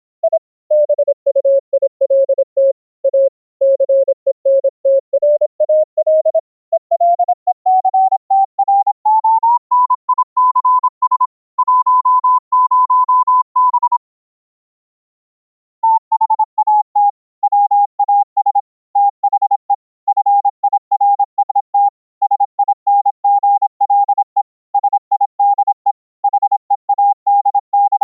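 Morse code sent as keyed CW audio notes over an internet voice link, a single note switched on and off in dots and dashes. Its pitch sinks at first, climbs higher around ten seconds in, then the sending pauses for about two seconds and resumes at a middle pitch.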